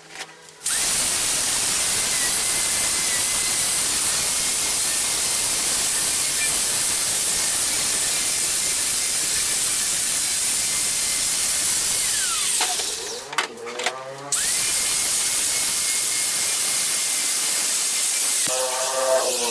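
An electric power tool's motor whirring up to speed with a loud, even hiss and a steady whine, winding down about twelve seconds in, then starting up again a second or two later.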